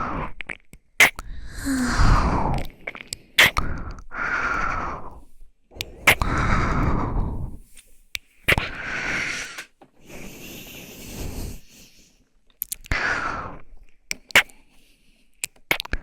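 Close-miked ASMR breathing: a woman's slow, breathy exhales into the microphone, about eight separate breaths of around a second each. Sharp short clicks fall between the breaths.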